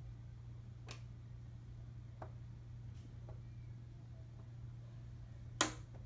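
Plastic snap-fit clips of an HP all-in-one's back cover popping loose as it is pried off: a few sharp clicks spread out, the loudest near the end, over a steady low hum.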